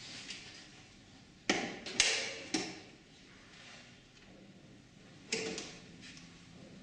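Metal door of a traffic-signal controller cabinet being handled and swung open: sharp clanks that ring on briefly, three in quick succession about a second and a half in, then one more about five seconds in.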